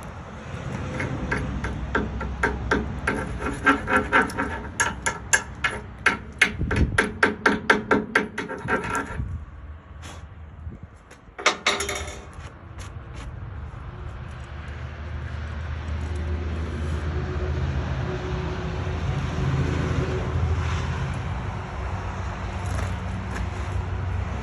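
A hammer striking steel in a fast, even run, about three to four blows a second for roughly eight seconds. A few more blows follow near the middle, then a steady low hum builds up.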